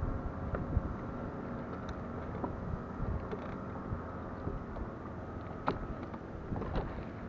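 Wind buffeting the microphone and small waves lapping against the hull of a fishing boat, over a faint steady hum. A few light ticks or slaps now and then.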